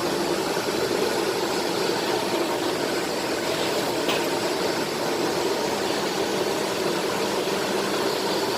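Colombo Agostino mechanical press's flywheel and drive running steadily with an even hum, just started and still settling to speed.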